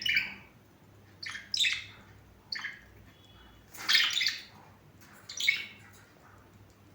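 Pet lovebirds calling in short, sharp chirps and squawks, about five separate calls, the loudest about four seconds in.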